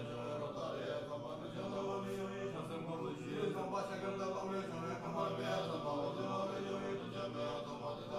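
Tibetan Buddhist monks chanting: low male voices in long held tones with slow changes of pitch.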